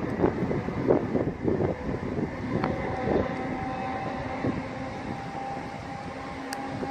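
Passenger train running on the line: irregular wheel clatter for the first couple of seconds, then a steady whine with two held tones.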